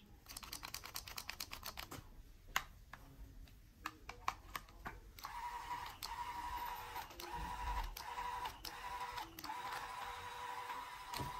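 Quick run of clicks in the first couple of seconds. From about five seconds in, a Bosch GSB 13 RE corded drill runs off a small homemade 12 V-to-220 V inverter, its motor giving a steady whine.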